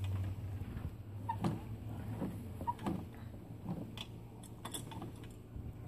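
Scattered light clicks and knocks of hard plastic toy parts being handled: a toy jack's handle being worked and the plastic wheel of a ride-on toy car being moved.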